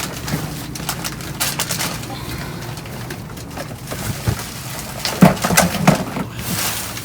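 Rummaging through a dumpster: boxes and packages knocked, shifted and crumpled, with a run of louder knocks about five to six seconds in.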